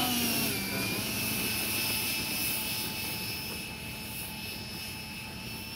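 Electric ducted fan of a CARF Spark model jet, a Stumax 110 mm fan, running with a steady high whine as the model rolls along the grass. Its pitch dips briefly near the start, then holds steady while the sound fades slightly as the jet moves away.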